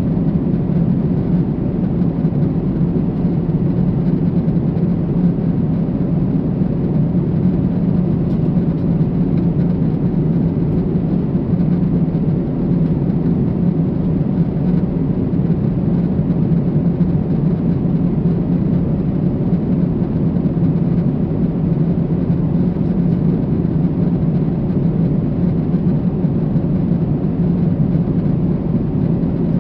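Steady cabin noise of a Boeing 747-8 in cruise flight: an even, deep hum of the engines and the rushing air outside, unchanging throughout.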